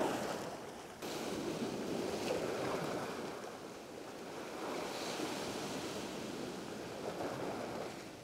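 Heavy ocean swell breaking into surf and washing back, the rush of water swelling and easing in surges.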